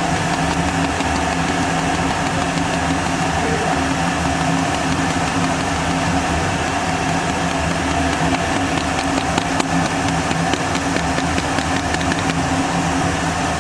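Steady mechanical hum of a running electric fan motor, holding several fixed tones, with a few faint light ticks about two-thirds of the way through.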